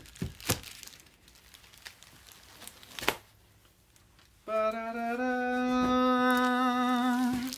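A few soft clicks and rustles of packaging being handled, then a person sings a long held fanfare note, "ba-da-da-da", for about three seconds.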